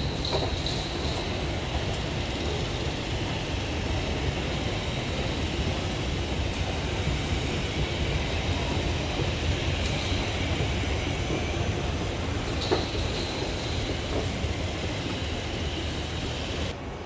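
Whoosh high-speed train running: a steady rumble with a faint high whine over it, and a single sharp click about twelve and a half seconds in.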